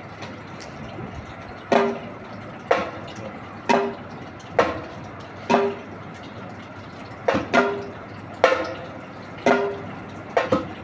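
Single drum strokes on a djembe, slow and evenly spaced about once a second, each a sharp crack with a short pitched ring; a few come as quick double strokes near the end.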